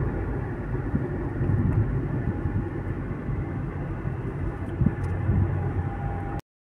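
Car on the move: a steady low rumble of road and engine noise, ending abruptly about six seconds in.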